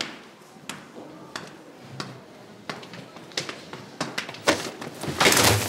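Footsteps going down hard stairs, a shoe click about every 0.7 seconds, then a louder scuffle of clothing and a bump near the end as one person shoves past another.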